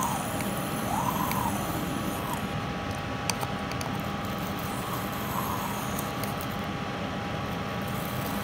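Benchtop solder fume extractor fan running steadily, an even hiss with a faint hum. A few light clicks, about a second in and again after three seconds.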